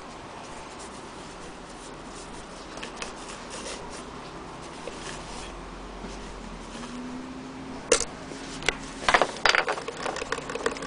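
Handling noise: faint rubbing and light clicks over a steady hiss, then a few sharp clicks and knocks in the last three seconds.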